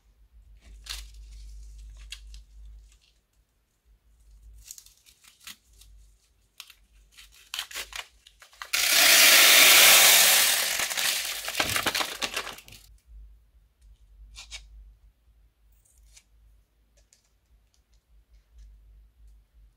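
Cellophane piping bag crinkling as it is handled, then a loud rush of small plastic beads (pony, seed and pearl beads) pouring out of the bag into a bowl for about four seconds, about nine seconds in. Scattered light clicks and rustles follow as the last beads settle and the bag is handled.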